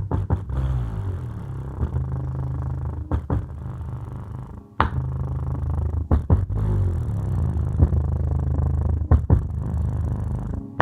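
Small Samsung subwoofer playing bass-heavy music: deep sustained bass notes that shift in pitch, with sharp beats and a brief break a little before the middle.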